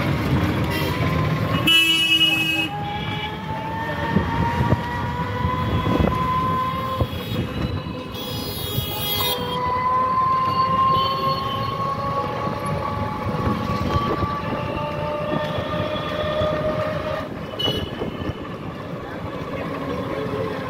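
Street traffic heard from inside a moving rickshaw: a vehicle motor's steady whine that slowly rises and falls in pitch, with short horn toots about 2 seconds in, around 8 to 9 seconds, and near the end.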